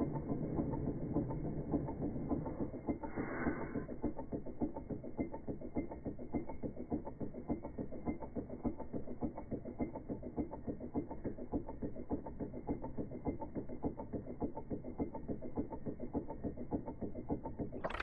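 Wiggers Stiwi 2 model hot-air Stirling engine running, its flywheel, crank and piston giving a fast, even mechanical clatter.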